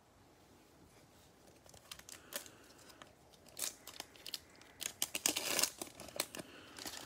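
Foil wrapper of a Panini Prizm football card pack crinkling and tearing as gloved hands open it: scattered crackles starting about two seconds in, getting busier near the end.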